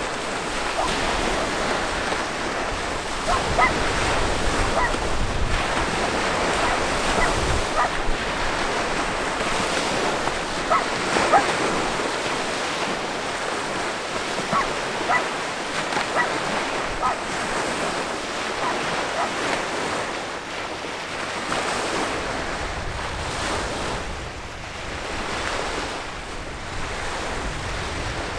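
Wind on the microphone over a steady wash of water, with low gusty rumbles here and there. Brief high calls are scattered through the first two-thirds.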